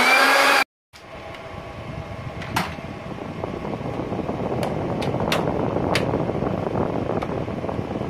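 Music cut off sharply, then a steady fan hum with scattered sharp clicks and taps as the sheet-metal control-box cover of a split air conditioner's indoor unit is handled.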